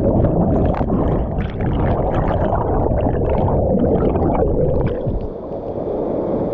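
Muffled rushing and gurgling of churning water, heard underwater in a waterfall's plunge pool, with dense crackling from bubbles.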